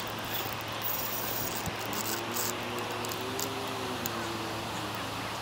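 Steady rushing noise of river water with a low hum underneath. In the middle, a faint engine drone rises and then falls in pitch.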